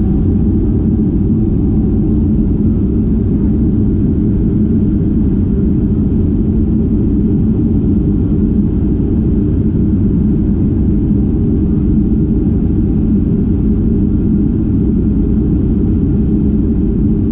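Cabin noise of a Southwest Boeing 737 rolling along the runway after landing: a loud, steady low rumble of the engines and rolling wheels.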